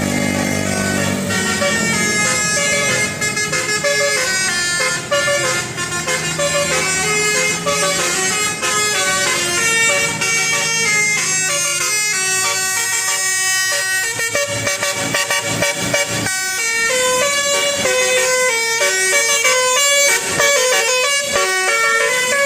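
Bus 'telolet' musical horn playing a long run of short notes that hop up and down in pitch like a tune.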